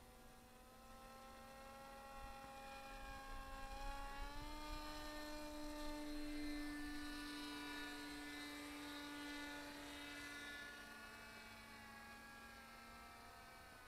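Paramotor engines and propellers running overhead as powered paragliders fly past. The sound grows to its loudest around the middle, then drops in pitch as it passes and fades.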